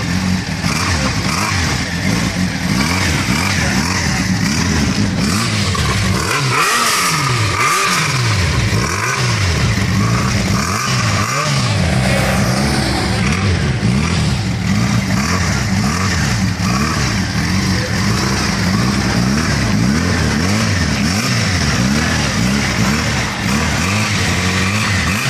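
Motorcycle engines: a fully faired sport bike runs close by while engine pitch rises and falls again and again, and another motorcycle rides past on the road about halfway through.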